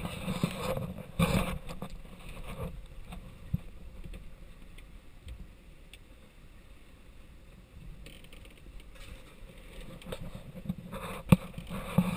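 Sailing yacht under way: a rushing noise of wind and water with scattered knocks. It is louder near the start and again near the end, with one sharp knock about eleven seconds in.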